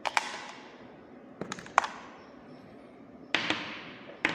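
Sharp plastic clicks and knocks from a handheld fetal doppler as its battery cover and battery are taken out, coming in four short groups, each with a brief fading ring.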